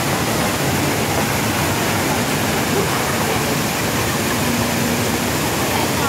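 Steady rush of falling water from the Rain Vortex, a tall indoor waterfall pouring down into the dome.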